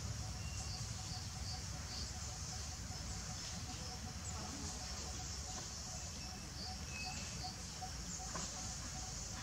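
Outdoor ambience: a steady high-pitched hiss with faint, scattered short chirps over a low rumble.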